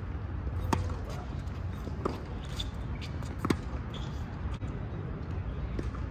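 Tennis ball struck by rackets and bouncing on a hard court in a rally: a few sharp pops, the loudest about a second in and again about three and a half seconds in. Under them runs a steady low outdoor rumble.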